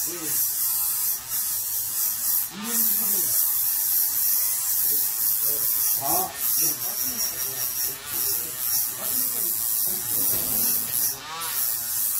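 Handheld rotary grinder with a small grinding stone, running at high speed against the titanium-coated steel lower blade of an electric pruning shear. It is grinding off the edge that has rolled over and chewed on branches.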